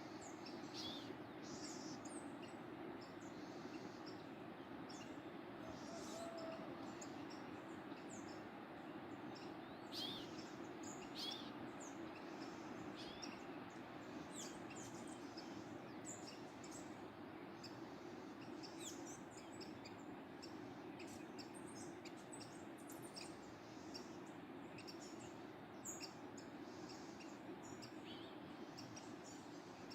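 Birds chirping and singing in short high calls scattered throughout, over the steady rush of a waterfall.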